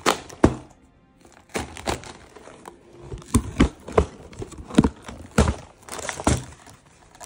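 A cardboard Lego set box being opened by hand and its contents handled: a string of irregular sharp snaps and knocks, with some crinkling.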